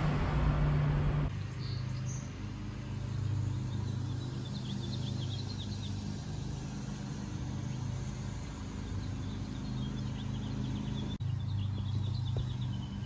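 Small birds chirping in quick runs of short, high notes over a steady low mechanical hum. A louder rush of noise, like passing road traffic, stops abruptly about a second in.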